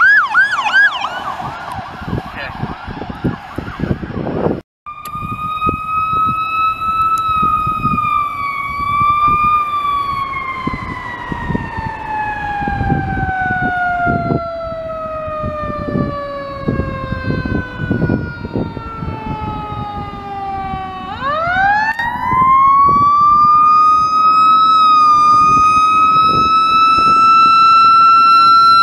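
A siren yelping rapidly at the start, then, after a short break, a fire engine's siren winding down in one long falling tone. About three-quarters of the way through it winds back up to a high, steady wail and holds there, beginning to fall again at the very end.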